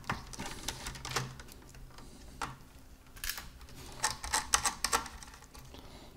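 Irregular sharp clicks and taps of laptop parts being handled during disassembly, with a quick run of clicks about four seconds in.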